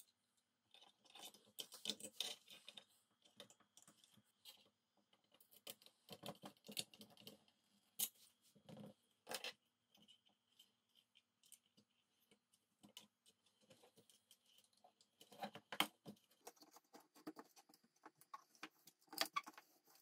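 Faint handling noise of circuit boards, wires and plastic connectors being fitted into an aluminium enclosure: irregular rustling with small clicks and knocks, the sharpest click about 16 seconds in.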